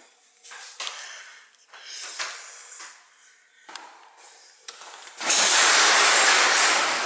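Garage door opener running as the sectional garage door rolls up, a loud steady mechanical rumble starting about five seconds in. Before it, a few short knocks and rustles.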